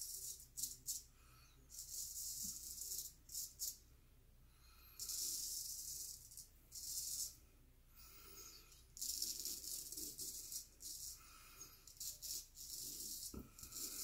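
Gold Monkey straight razor scraping through lathered stubble on the cheek and jaw in a series of short strokes, some brief and a few over a second long, with pauses between. This is the second pass of the shave.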